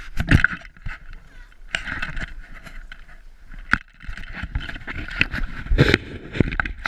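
Footsteps crunching in snow while walking uphill, uneven, with heavy thumps and a scraping rustle close to the microphone.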